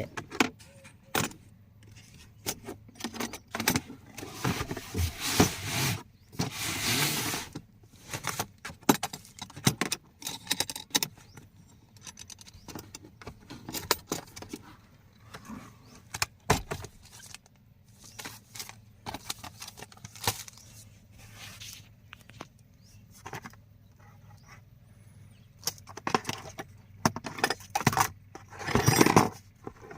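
A new power drill's cardboard box and packaging being opened and handled: irregular rustling, scraping and clicking.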